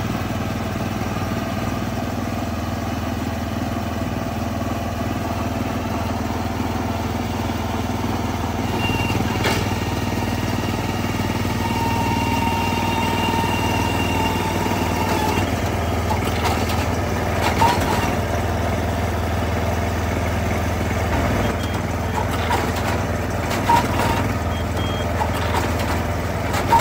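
Engine of a Sasaki NU425 ride-on garlic planter running steadily. Scattered mechanical clicks and knocks from the machine join in over the last third.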